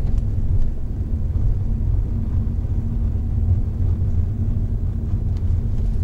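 Honda Odyssey RB3 on the move, heard from inside the cabin: a steady low rumble of road and engine noise with a faint steady hum.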